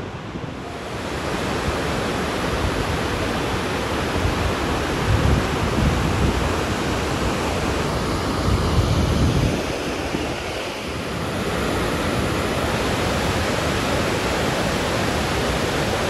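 A waterfall and rocky rapids rushing, a steady, even wash of water noise. A few low wind gusts buffet the microphone in the first ten seconds.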